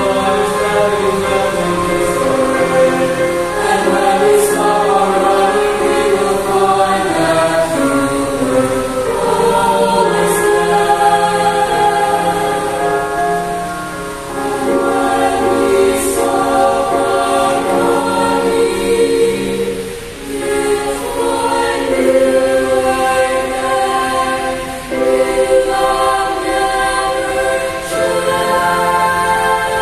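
Small mixed-voice choir singing a four-part (SATB) anthem in long, sustained phrases, with short breaths between phrases about 14, 20 and 25 seconds in.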